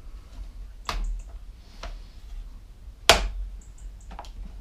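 Homelite chainsaw's chain brake being snapped on and off by hand: a loud sharp snap about a second in and another about three seconds in, with lighter clicks between. The brake is binding and not releasing fully.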